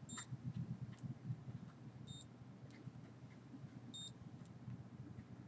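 Digital thermometer beeping as it takes readings: three short, high beeps about two seconds apart, over a low background hum.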